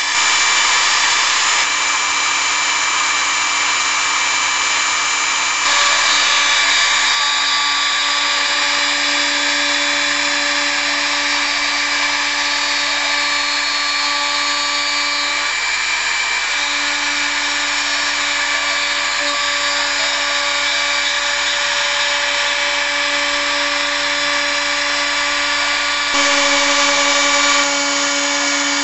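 HobbyCNC router's spindle running with a steady whine while its bit carves a relief into a wooden board, with cutting noise. It gets briefly louder about six seconds in and again near the end.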